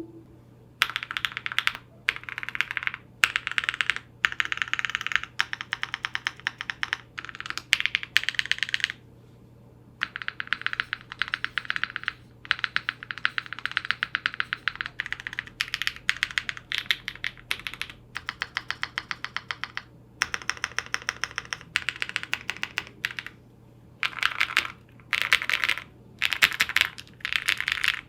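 Space80 Apollo mechanical keyboard being typed on fast: lubed and filmed Durock POM switches on an FR4 plate with PE foam, under Domikey keycaps. The keystrokes come in quick runs of one to three seconds with short pauses between.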